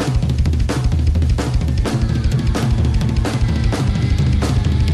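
Music: a drum-kit beat with heavy bass and a snare hit about every three-quarters of a second, with a held note coming in about two seconds in.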